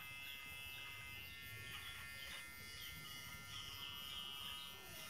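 GSE 009 electric hair clipper running with a steady buzz, its guard comb removed, as it shaves beard stubble close along the jaw and chin.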